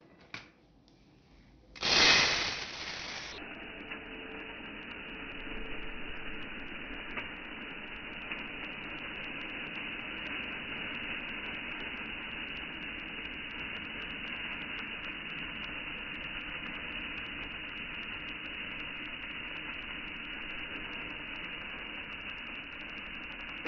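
Dry uncooked rice poured in a steady stream from a metal bowl into a dark pot partly filled with rice: a continuous hiss of grains landing, with fine ticks of single grains. About two seconds in there is a short, louder burst of noise.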